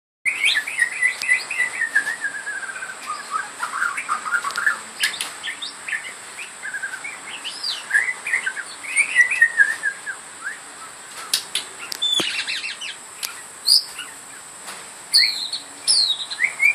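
White-crowned shama singing: a continuous run of varied clear whistled notes and phrases, some sliding downward, with sharper high chirps in the second half.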